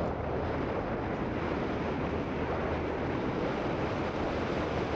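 Steady rush of wind on the microphone and water washing past a moving boat, with a low, even rumble underneath.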